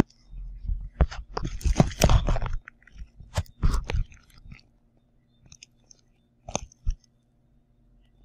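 Tissue-paper stuffing inside a leather bucket bag crinkling and rustling as the bag is handled. A dense run of crackles comes in the first couple of seconds, then a few separate crackles later on.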